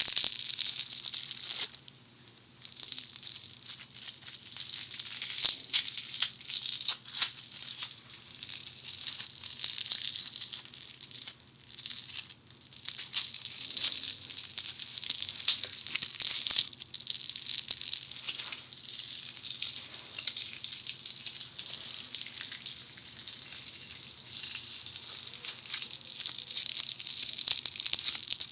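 Funny Foam, a foam-bead modelling clay, being squeezed and pulled apart by hand: a dense, crisp crackling and popping as the small foam balls tear from the sticky glue. There are brief pauses about 2 seconds and 12 seconds in.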